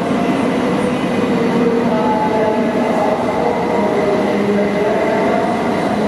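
Stationary electric trains, a DB class 103 locomotive and an ICE, running their cooling fans and electrical equipment: a steady loud whir with several held tones over a rushing noise.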